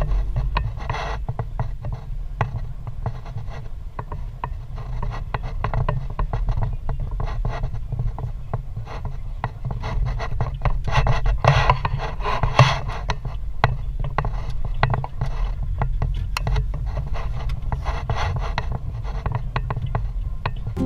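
Car interior while driving: steady low engine and road rumble, with frequent rattling and scraping clicks from the dashboard.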